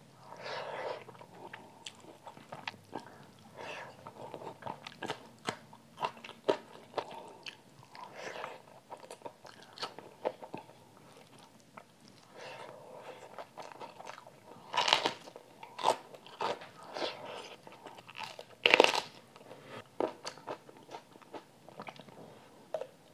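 Close-miked eating sounds: chewing and crunching of hand-fed food with wet mouth clicks. A few louder, crunchier bites stand out, the loudest about 15 and 19 seconds in.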